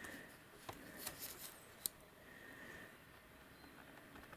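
Near silence, with a few faint clicks and rustles; the sharpest click comes a little under two seconds in.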